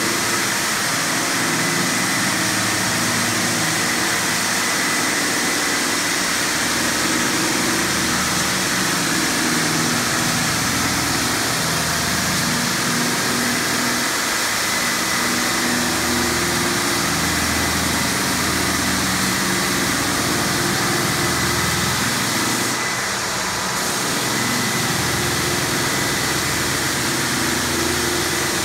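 Bona 250 belt-drive floor sander sanding a timber floor, with a Bona DCS70 dust extractor drawing the dust through its hose: a steady, loud mix of motor and suction noise with a thin high whine.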